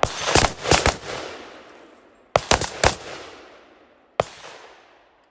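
Gunshots from two shooters firing a barricade drill together: four quick shots at the start, four more about two and a half seconds in, and a single shot past four seconds, each echoing as it fades.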